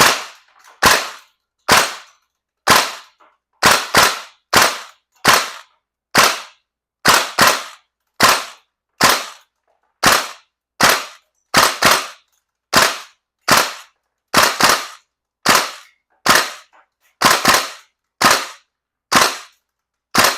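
VFC KAC M110K1 gas blowback airsoft rifle firing a string of semi-automatic shots, about one a second, with some fired in quick pairs.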